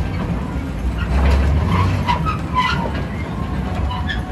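Amusement-ride car running slowly along its course, giving a steady low rumble.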